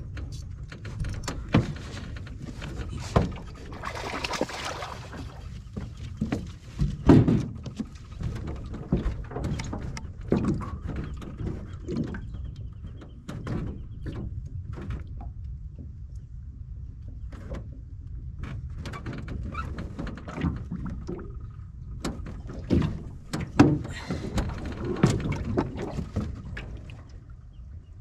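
Irregular knocks and thumps on an aluminum boat as the angler moves about the deck, over a steady low rumble. A cluster of louder knocks comes about seven seconds in and again near the end.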